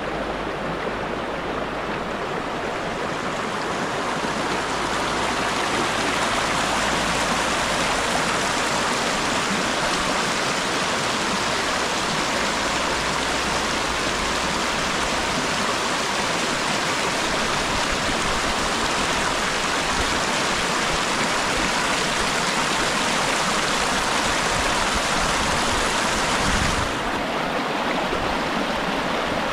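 Shallow rapids of water released from a dam, rushing and splashing over a rocky streambed: a steady, even rush. There is a brief low thump and a change in tone near the end.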